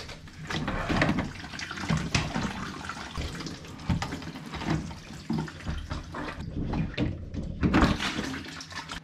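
Water splashing and dripping into a plastic bucket as a whole-house water filter housing is unscrewed and its clogged cartridge is lifted out. A few sharp knocks of plastic on plastic come in between.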